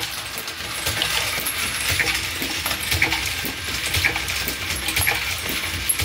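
Mark 7 automated reloading press cycling steadily while processing nickel-plated brass cases. Ejected cases clink and clatter through a hose chute into a plastic bucket, with a louder metallic clink about once a second.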